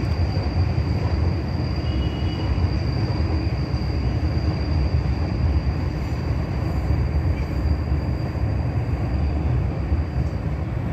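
Kolkata Metro train running past on an elevated viaduct: a steady low rumble of the train rolling on the rails, with a thin high whine held throughout.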